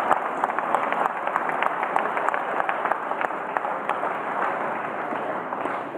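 Crowd applauding, a dense patter of many hands clapping that slowly dies down.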